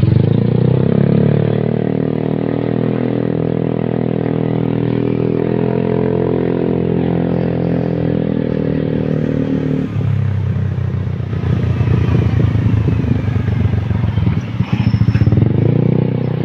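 Motorcycle taxi's engine running under way, heard from on board. Its note rises at the start and holds steady, drops sharply about ten seconds in as the bike slows, then climbs again near the end as it speeds back up.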